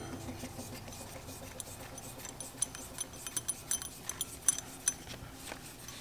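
Light metallic clicks and clinks of a cam bearing installation tool's parts being handled: the driver head and centering cone on its aluminium bar. The clicks are many and irregular, starting about a second and a half in.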